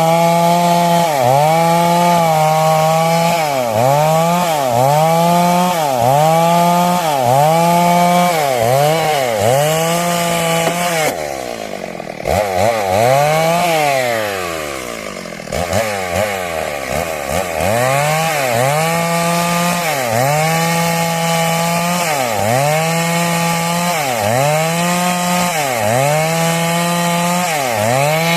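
Stihl MS 382 two-stroke chainsaw cutting through wood at high revs. The engine pitch dips and recovers about once a second as the chain loads up in the cut. About 11 seconds in, the revs fall toward idle, then climb back up to full speed around 17 seconds.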